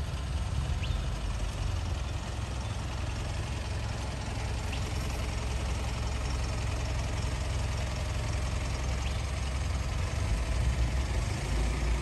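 Car engine idling, a steady low rumble that holds throughout.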